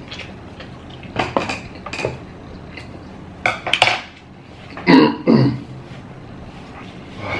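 Crinkling and clicking of a plastic tissue packet and table items being handled, then two loud nose blows into a tissue about five seconds in.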